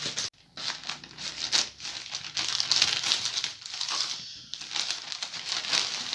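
Parcel packaging crinkling and rustling as it is cut and pulled open with scissors: a run of quick crackly rustles that stops briefly twice.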